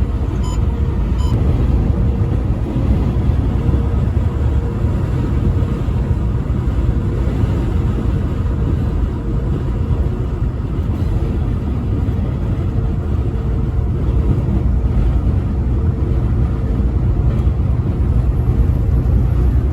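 Steady low rumble of a vehicle driving at highway speed, road and tyre noise mixed with engine drone, with no horn sounding.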